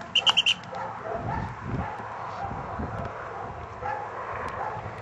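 A dog-training whistle blown in a quick run of four or five short, high toots near the start, the usual recall signal to a retriever. After that only a low wind rumble.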